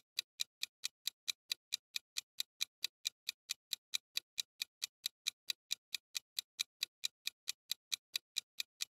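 Countdown-timer sound effect: an even clock-like ticking, about four crisp ticks a second, marking the seconds running down to the quiz answer.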